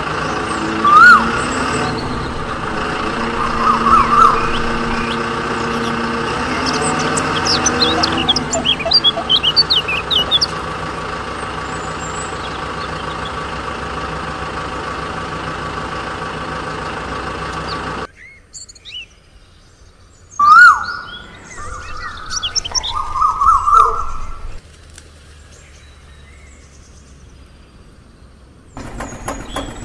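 A motor-vehicle engine sound runs steadily while birds chirp over it in short rising whistles. About two-thirds of the way through, the engine sound cuts off suddenly, leaving birds chirping against a quiet background.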